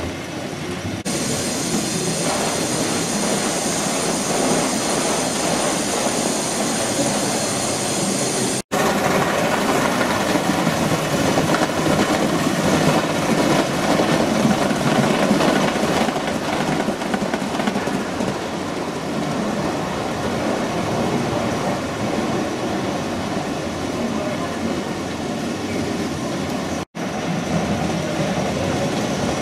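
Gauge 1 model trains running on the layout: a steady rumble and clatter of wheels on the track. A high, steady whine sits over the first several seconds, and the sound breaks off abruptly twice, about nine seconds in and near the end.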